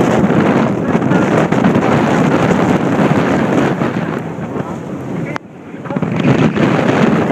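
Wind buffeting a phone's microphone on a fishing boat at sea: a dense, rumbling rush of noise. It drops away suddenly about five seconds in, then builds back up.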